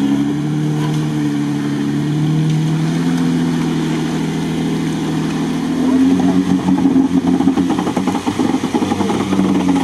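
Jeep Wrangler Rubicon's engine pulling the vehicle through deep water. It runs steadily at first, then from about six seconds in grows louder and rougher under load as the tyres churn through the water.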